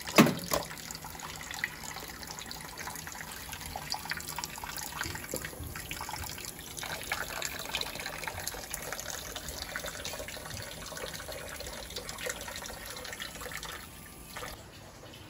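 Kitchen tap running into a stainless steel sink, the water splashing onto a live lobster in a plastic bag; the sound drops near the end. A sharp knock right at the start.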